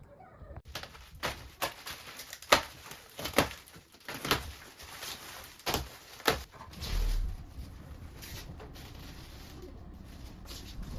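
Irregular knocks and bumps, about seven over five seconds, then a brief low hum about seven seconds in.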